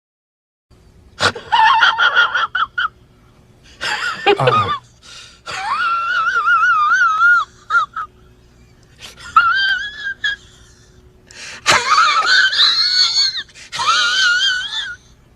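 A high-pitched, wheezing vocal sound effect, a cartoon-like wheeze in about six separate bursts whose pitch wobbles up and down, the longest near the middle.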